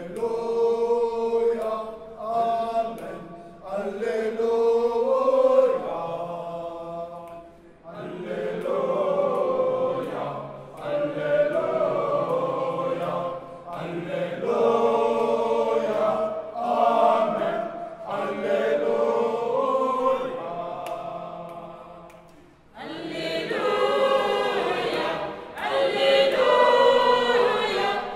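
Mixed church choir of men and women singing sacred music in several voice parts. The singing comes in long held phrases, with short breaks about eight seconds in and again near the end.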